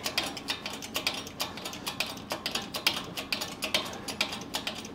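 Hydraulic shop press being pumped quickly, giving rapid, irregular clicking several times a second as the ram presses the swivel joint's spool down into its housing.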